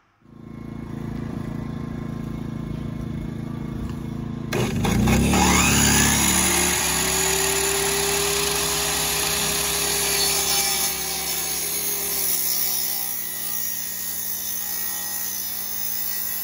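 Sliding compound miter saw starting up about four seconds in: the motor spins up with a rising whine, then the blade runs steadily, cutting through a wooden board.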